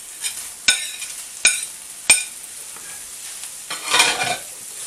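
Chopped bacon going into a hot frying pan: a steady sizzle, three sharp metal clinks of a utensil in the first two seconds, then a louder burst of sizzling about four seconds in as the bacon hits the hot fat.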